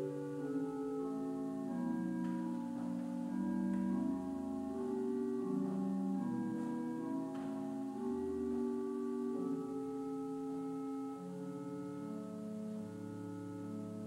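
Pipe organ playing slow, sustained chords that change about once a second, with deep pedal bass notes coming in now and then.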